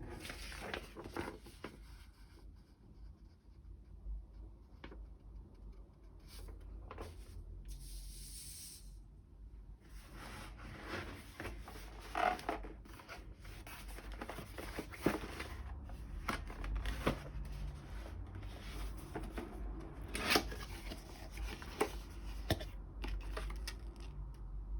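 Packaging being unpacked by hand: rustling and tearing of paper and packing material, with scattered clicks and knocks and a longer hissing rip about a third of the way in.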